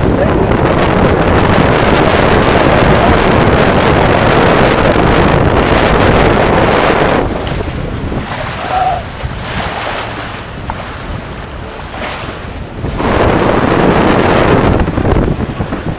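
Wind buffeting the microphone over water rushing past the hull of a Hunter 27 sailboat under sail. The gusty noise eases about seven seconds in and picks up again around thirteen seconds.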